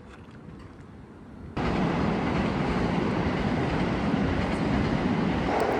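Train running: a loud, steady rumbling noise cuts in abruptly about one and a half seconds in, after a faint low rumble.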